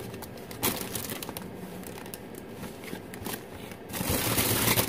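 Plastic packaging crinkling as costume pieces are handled, with a short rustle about half a second in and a louder stretch of rustling near the end.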